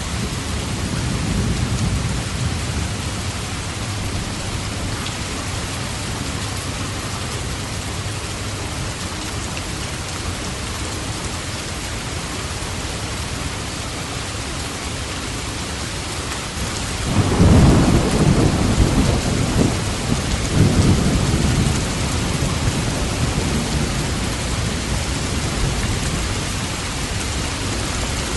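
Steady heavy rain, with a low rumble of thunder near the start and a loud, deep roll of thunder about two-thirds of the way through that swells twice before dying back under the rain.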